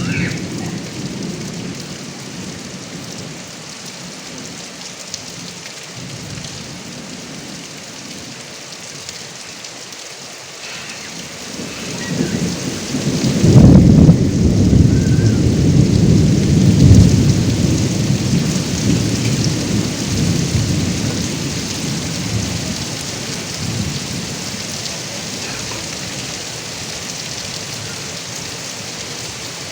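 Heavy rain falling steadily onto a roof gutter spout. A long roll of thunder builds about twelve seconds in, peaks over the next few seconds and rumbles away over about ten seconds.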